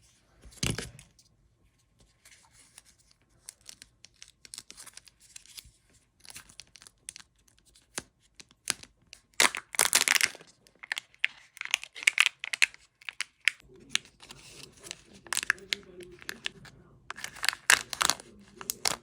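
Foil wrapper of a Kinder Joy egg crinkling and being torn open: a string of sharp crackles and tearing rips, loudest about ten seconds in and again near the end.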